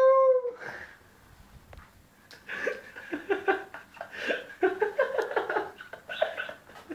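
A long, held cry in one voice cuts off about half a second in. After a short lull, people laugh and talk indistinctly.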